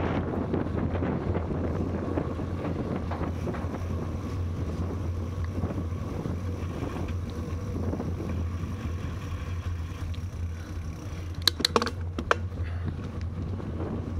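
Wind buffeting the microphone of a moving bicycle, with a steady low rumble from the ride along the paved towpath. A few sharp clicks or knocks come about eleven to twelve seconds in.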